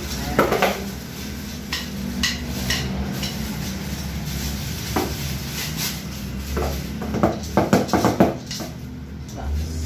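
Metal drum-kit hardware being unwrapped and handled: plastic bags rustling and the light clinks and clacks of small metal parts knocking together, with a quick cluster of sharp clicks near the end.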